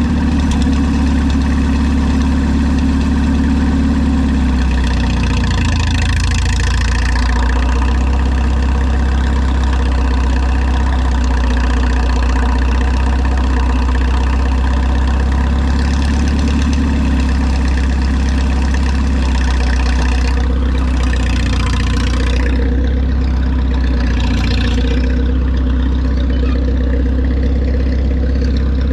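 Old tractor engine running steadily at a low, even idle.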